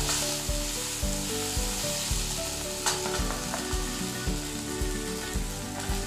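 Onion-tomato masala sizzling as it fries in oil in a steel kadhai, stirred and scraped with a spatula, with one sharp clink of the spatula on the pan about three seconds in.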